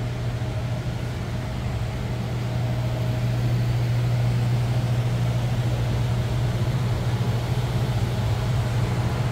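Large air-conditioning unit running super loud: a steady low hum over an even rush of air, with a faint higher tone that fades in and out.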